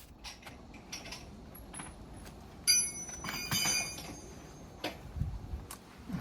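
Small metal objects clinking and knocking. About three seconds in comes a sharp metallic strike that rings on with several high tones, then a second ringing clink, among scattered light clicks.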